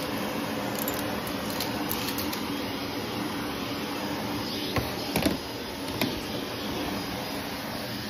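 Vacuum cleaner running steadily on carpet, a constant motor hum with a whoosh of suction as it is pushed back and forth. A few sharp clicks sound about five to six seconds in.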